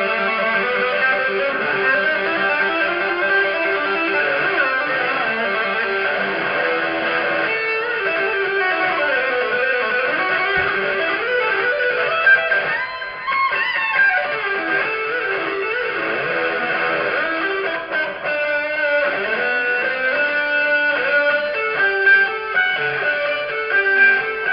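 Electric guitar played live, loud fast lead lines, with a sliding, bent note a little past halfway and quick repeated notes near the end.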